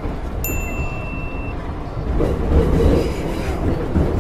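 Metro train car running with a steady low rumble that swells louder around the middle, and one high electronic beep about half a second in that lasts about a second.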